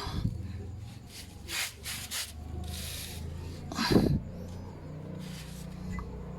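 Short rasping strokes of a brush or rag scrubbing a motorcycle chain during cleaning, with a heavier knock about four seconds in.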